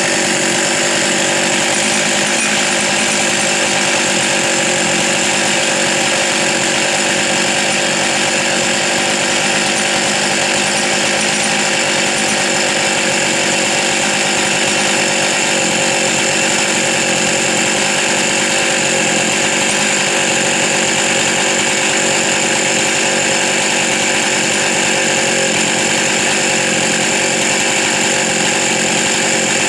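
Two-stroke chainsaw engine running loud and steady at a constant pitch, with no change in speed.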